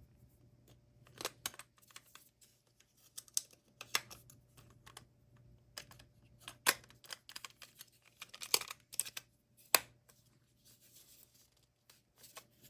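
AA batteries and a plastic battery compartment clicking and clattering as the batteries are fitted against tight spring contacts: irregular small clicks, the sharpest a little before ten seconds in.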